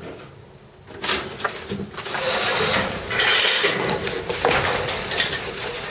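Rough scraping and rasping with repeated knocks, starting about a second in: a white tiger clawing at and tugging on a wooden log hung from a rope.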